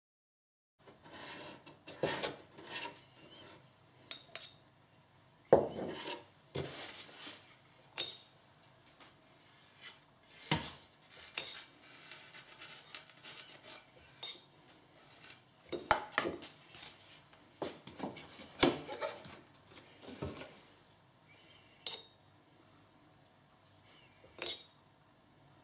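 Hand-work handling sounds while a thin wooden cello rib is fitted around the block of a clamped building jig: irregular sharp knocks and clicks with short bits of rubbing. The loudest knock comes about five and a half seconds in.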